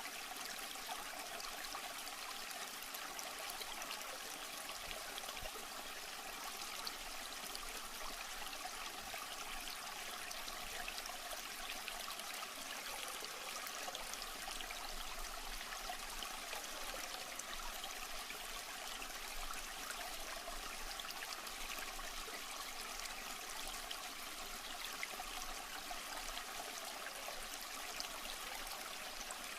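Water trickling and splashing steadily, as an aquarium filter's outflow does into the tank.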